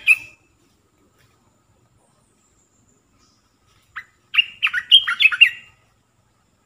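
Olive-winged bulbul singing a short bubbly phrase of quick warbled notes about four seconds in, after the end of a previous phrase at the start.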